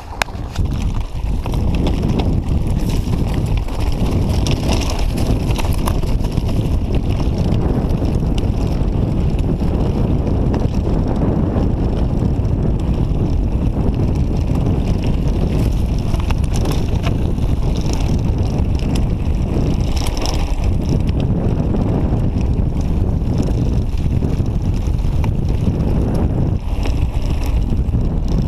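Wind buffeting the camera microphone in a steady low rumble as a mountain bike descends, with faint clicks and rattles of the tyres over loose gravel.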